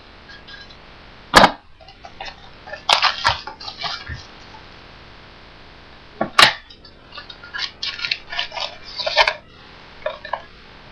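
A small cardboard mini box of trading-card packs being opened by hand: two sharp cracks, about a second and about six seconds in, each followed by crinkly rustling and tearing of cardboard and pack wrappers.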